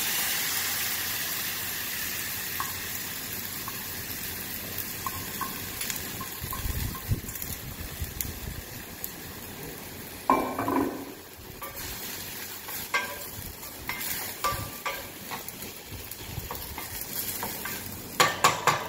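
Brown rice frying and sizzling in hot olive oil in a stainless steel saucepan while it is stirred with a wooden spatula. The rice is being toasted in the oil before the water goes in. The sizzle is loudest at first and slowly dies down, with light scrapes and knocks against the pan, a louder cluster about ten seconds in and another near the end.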